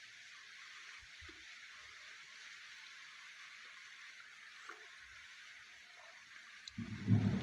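Steady hiss of rain falling outside, with a few faint ticks. Near the end a louder, low, close-up crunching sound of clay being chewed starts.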